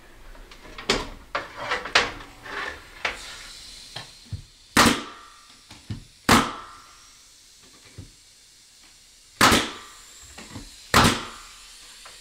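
Pneumatic nail gun firing four sharp shots, a second or more apart, driving nails through a thin reclaimed barn wood board into the wall studs. Before the shots, a string of lighter knocks and clatter as the board is handled against the wall.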